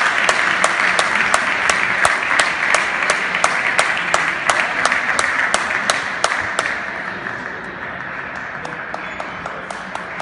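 Hall audience applauding after a point, dying away after about six and a half seconds. Sharp clicks of table tennis balls being struck and bouncing come two or three a second throughout.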